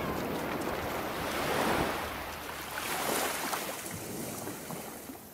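Wind buffeting the microphone and water rushing past the hull of a small aluminium boat under way, an even hiss that swells a couple of seconds in and fades toward the end.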